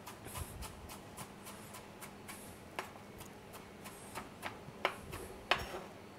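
Chef's knife chopping rocket leaves on a plastic cutting board: an even run of light taps, about three or four a second, with a few sharper knocks near the end.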